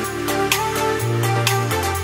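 Background music: an electronic track with a steady beat of about two hits a second over held bass notes that change about once a second.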